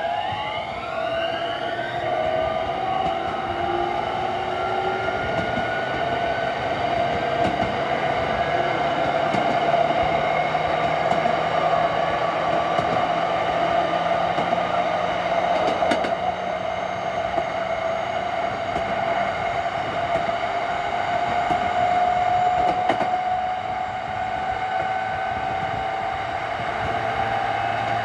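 JR East E231 series electric train's Hitachi two-level IGBT VVVF inverter whining over rail running noise. Several pitches climb together in the first two seconds as the train gains speed, then settle into a steady high whine.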